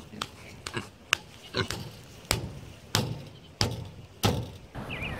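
Hammer striking a plastic tent stake, driving it into soft turf: about eight sharp blows, one roughly every half second or so.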